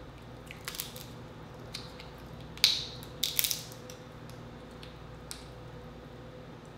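King crab leg shell being cracked and pulled apart by hand: a few small crackles about a second in, one sharp crack near the middle, then a quick run of cracks just after.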